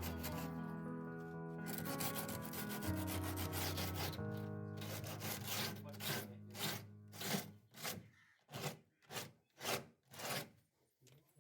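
Rhythmic hand rubbing strokes, about two a second, abrading the rusted lower edge of a fridge door, over background music that drops out a little past halfway.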